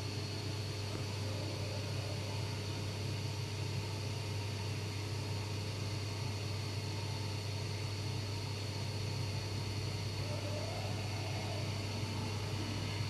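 Hurco VM10U 5-axis CNC machining centre running as it mills the fillet of a 55 mm compressor impeller blade: a steady low hum with a thin, high, constant whine over a hiss, unchanging throughout.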